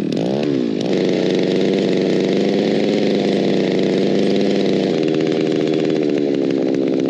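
Small gasoline engine driving a winch reel, hauling up a deep fishing line. It revs up and down in the first second, then runs steadily under load, its tone shifting slightly about five seconds in.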